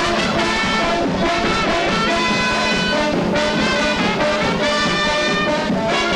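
Marching band playing, with brass instruments carrying the tune.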